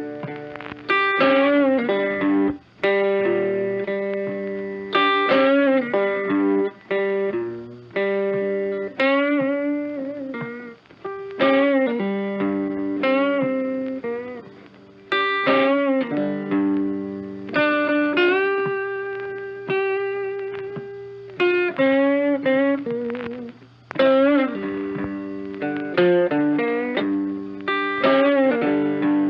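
Background music: an electric guitar playing a melody of picked notes and bends.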